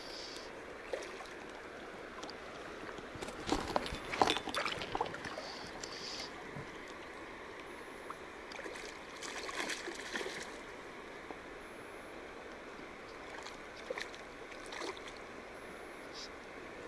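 River water flowing steadily, with two spells of splashing, about four seconds in and again about ten seconds in.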